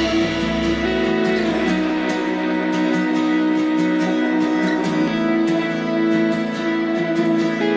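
Background music led by a plucked guitar, with a deep low note fading out about two seconds in.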